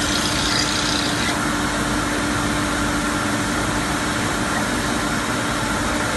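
CNC machining centre running while it machines brass valve bodies: a steady mechanical hum with one held tone under a noisy wash, and a higher hiss that stops about a second in.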